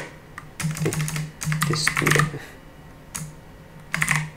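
Computer keyboard typing: four short bursts of rapid key clicks with pauses between.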